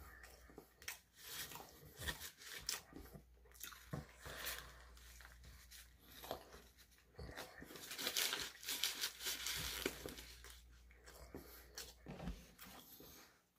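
Biting into and chewing a grilled shawarma wrap, with its paper wrapper crinkling in the hands; a denser spell of tearing and crinkling comes about eight seconds in.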